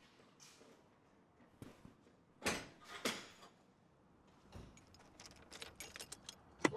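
A compact pickup truck's door being unlatched and opened, two noisy clunks about two and a half and three seconds in, followed near the end by a quick run of light metallic clicks and jingles from keys being handled, ending in one sharp click.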